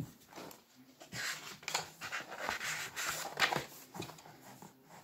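Pages of a paperback guidebook being leafed through by hand: a run of short swishes, about two a second.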